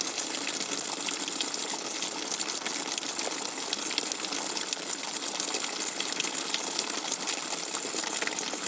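Rainwater dripping fast and hard: a dense run of quick, sharp drop hits over a steady hiss.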